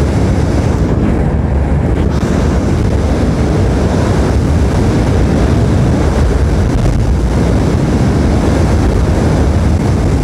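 Steady wind rush buffeting the microphone on a Yamaha Aerox 155 scooter ridden flat out at over 100 km/h, with its engine running under the wind noise.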